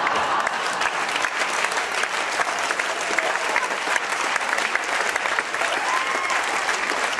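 Audience applauding: dense, steady clapping from a room full of people, with a few voices mixed in.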